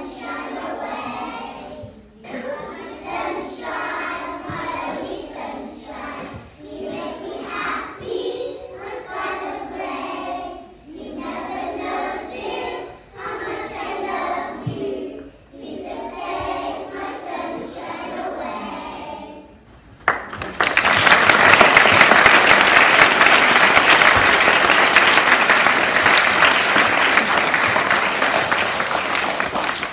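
A group of young children singing together in short phrases. About two-thirds of the way through the song ends and the audience breaks into loud applause, which starts to fade near the end.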